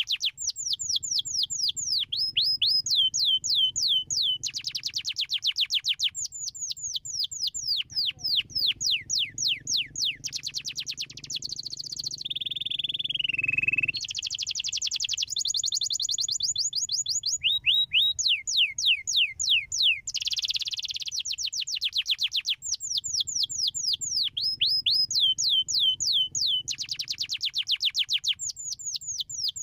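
Domestic canary singing a continuous song of fast trills: runs of rapid down-sweeping notes that change pattern every second or two, with one slower gliding note about halfway through.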